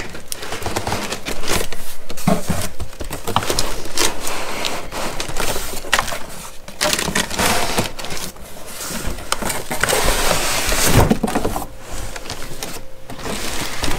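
Plastic wrap crinkling and cardboard scraping as a plastic-wrapped radio is slid out of its cardboard box, in irregular rustles with short crackles and light bumps.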